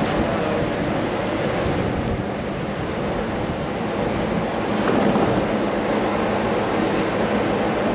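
Steady wind rushing over the camera's microphone, with a low buffeting rumble that swells slightly about five seconds in.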